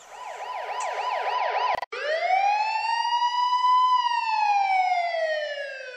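Emergency vehicle siren: a quick yelp of about four rising-and-falling sweeps a second, then after a brief cut almost two seconds in, a slow wail that climbs and then falls away.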